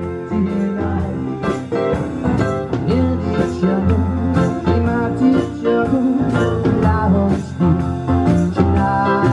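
Live acoustic rock band playing: strummed acoustic guitar, drum kit with a steady beat and keyboard, with a man singing.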